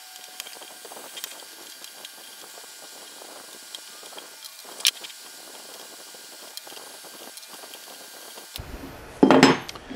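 Faint, scattered metallic clicks and ticks of an Allen key backing steel screws out of the aluminium plates of a CNC Z-axis carriage, with the plates being handled, and one sharper click about five seconds in, over a faint steady hum.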